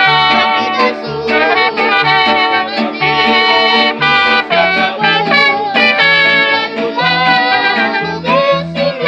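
Live band music: a boy singing over strummed acoustic guitars, accordion and trumpets, with low bass notes on a steady beat.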